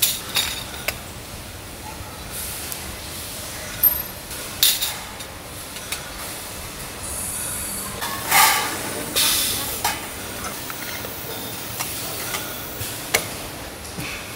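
Steady factory machinery noise with scattered sharp metallic clinks, and a few louder clattering passages of metal bottle parts being handled, the loudest about eight seconds in.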